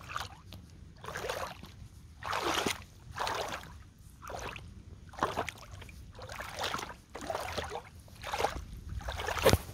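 Leather boots wading through a muddy puddle, each step a slosh and splash of water, about one step a second.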